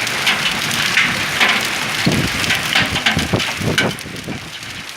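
Hailstones pelting down: a dense, irregular clatter of many small impacts with occasional heavier hits, easing off about four seconds in.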